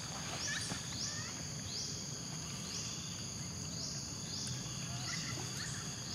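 Insects calling: a steady high buzz with a short rising buzzy call repeated about once a second, and a few faint short chirps.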